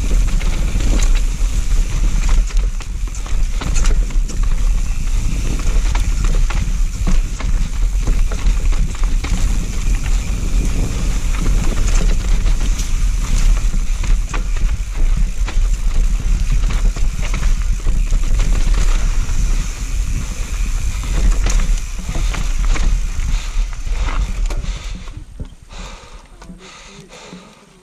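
Wind buffeting the microphone and the clatter and knocks of a mountain bike riding fast down a rough dirt trail. It quietens sharply about three seconds before the end as the bike slows to a crawl.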